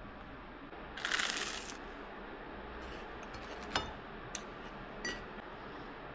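Quiet kitchen handling sounds: a short hiss about a second in, then a few light clinks and taps like glassware being handled.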